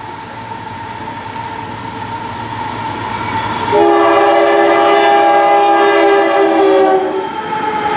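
Diesel freight locomotive's multi-chime air horn sounding one long, loud chord that starts about halfway in and breaks off about a second before the end, over the rising rumble of the approaching train. A second horn blast begins right at the very end.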